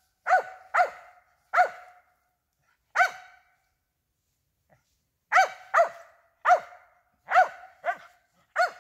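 Squirrel-hunting dog barking: about ten sharp, evenly pitched barks, with a pause of about two seconds midway. This is the steady barking a treeing squirrel dog gives at a tree holding a squirrel.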